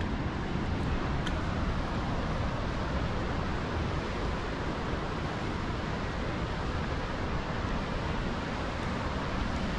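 Steady, even rush of ocean surf breaking on the rocky shore below, mixed with wind.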